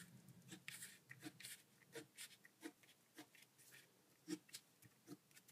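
A pen drawing short dashes on a sheet of paper to mark valley folds: a faint, uneven series of short scratches, two or three a second.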